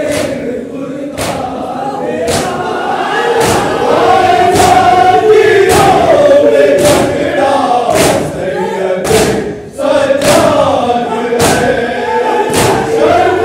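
Men's voices chanting an Urdu noha (Shia lament) together, with a sharp hand-on-chest matam strike about once a second keeping the beat.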